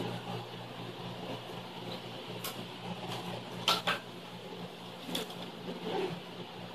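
Steady low hum of room noise with a few light clicks, and a sharper double click about halfway through.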